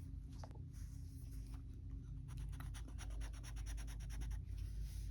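Colored pencil scratching on paper: a few scattered strokes, then from about two seconds in a run of quick back-and-forth strokes, several a second, over a faint low hum.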